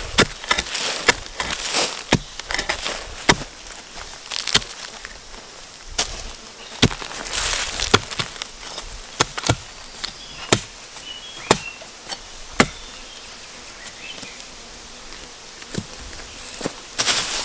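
A hand tool chopping at bamboo shoots: sharp, irregular strokes about once a second, with a pause of a couple of seconds near the end. A high hissing rustle runs around the strokes.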